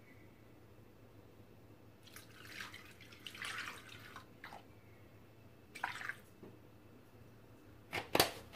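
Milk poured from a carton into a Thermomix's stainless steel bowl, splashing for about two seconds, then a short second splash. A couple of sharp knocks come near the end.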